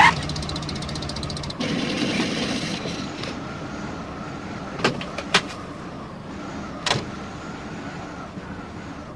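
Small van engine running with a rapid rattle, cutting off about a second and a half in. A steady rushing noise follows, with three sharp clicks.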